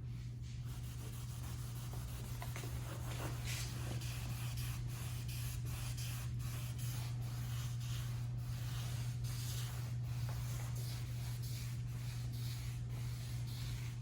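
A rag scrubbed back and forth over a rigid core vinyl plank in repeated hissing strokes, about one or two a second, working at a stubborn permanent-marker stain. A steady low hum runs underneath.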